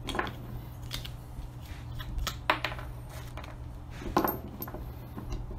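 Small metal fuel-line fittings and pliers clinking and clicking against each other and the wooden workbench as they are handled, a few scattered knocks with a steady low hum underneath.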